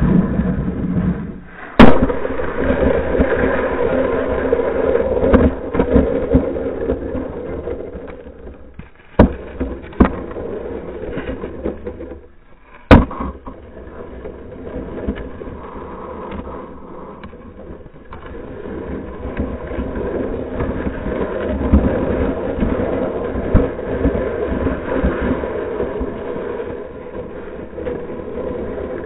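A Xiaomi Yi action camera, used as a puck, sliding and scraping over pond ice, heard through its own microphone as a continuous rough rumble that swells and fades. Sharp knocks come as a hockey stick blade hits it: once early, twice close together a little before the middle, and loudest just after.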